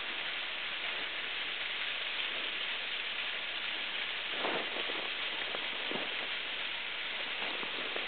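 Water running and splashing down an ice-covered waterfall in a steady rushing hiss, with a few brief splashes from about halfway through.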